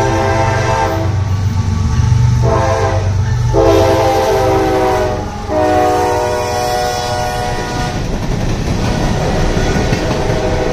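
Horn of CSX locomotive 911, a GE ES44AC, sounding in several blasts as it passes, the last long blast dropping in pitch as the locomotive goes by, over the diesel engine's rumble. After about eight seconds the horn stops, leaving the clatter of loaded coal hopper cars rolling past on the rails.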